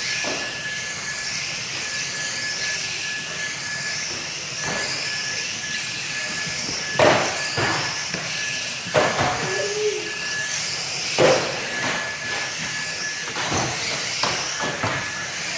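A pack of small electric RC saloon cars racing on a carpet track, their motors giving a wavering high whine that rises and falls as they pass. Sharp knocks of cars hitting cut through it about three times, a couple of seconds apart.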